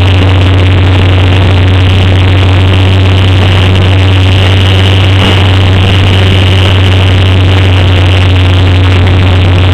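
Electric motor and spinning propeller of a Multiplex Easy Glider RC sailplane running steadily under power, heard loud and close through the camera mounted on the plane's nose, with a steady low hum and wind rush.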